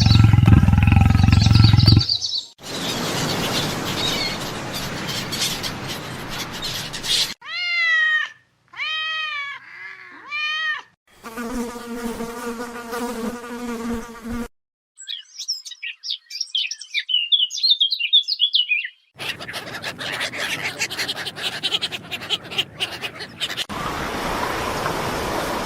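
A run of separate animal calls cut one after another. They include three short calls that rise and fall in pitch, a steady pitched drone, a stretch of high twittering chirps, and several noisier calls between them.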